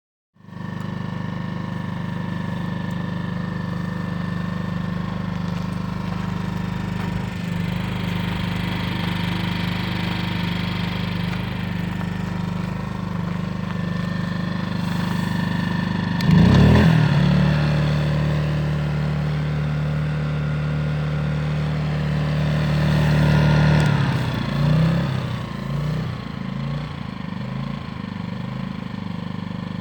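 Portable inverter generator engine running with a steady hum. About halfway through the note changes abruptly, and from about three-quarters of the way in it wavers unevenly.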